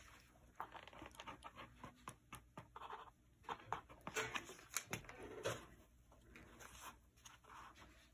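Faint rustling and handling of fabric being pressed and smoothed over a board by hand, with scattered light clicks and taps.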